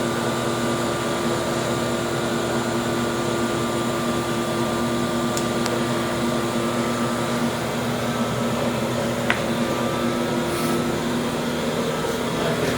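Glass-working gas-air burner and its blower running steadily: an even hiss of flame and air with a low hum, set to a lean mixture. A couple of faint clicks are heard in the middle.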